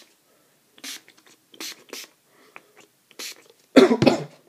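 Trigger spray bottle of bowling ball cleaner squirting onto a bowling ball: four short hissing sprays, then two louder bursts near the end.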